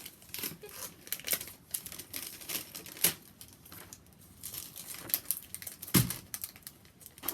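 Crinkling and rustling handling noises: a run of short clicks and rustles, with one louder knock about six seconds in.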